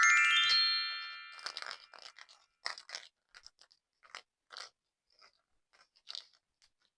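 A bright chime sound effect rings out and fades over the first second and a half. Then slime being squeezed and pressed by hand gives irregular short crackling pops with pauses between them.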